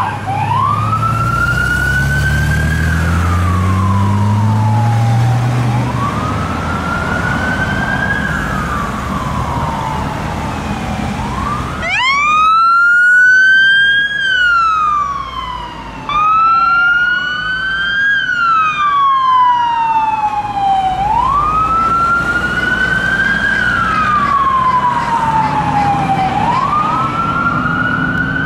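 Fire engine sirens sounding a wail: slow sweeps that rise and fall roughly every five to six seconds. For the first few seconds a truck engine can be heard pulling away, rising in pitch. About halfway through the sound cuts abruptly to another wail, louder, with two sirens sweeping slightly out of step.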